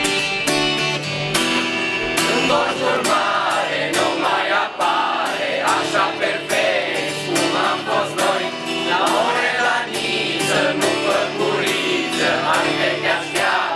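A group of young men and women singing together in unison, accompanied by a strummed acoustic guitar. The guitar plays alone for the first couple of seconds before the voices come in.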